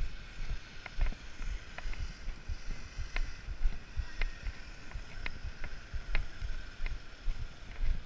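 Wind rumbling on the microphone, with short sharp ticks about once a second from footsteps on dry leaf litter and twigs.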